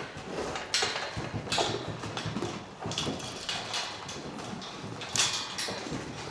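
Goats and sheep moving in a barn: hooves clattering and scuffing, with several sharp knocks and rustles spread through it.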